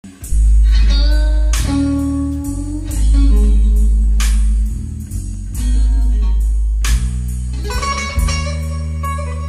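Guitar music with a strong, deep bass line, played back through a pair of Celestion Ditton 44 three-way loudspeakers.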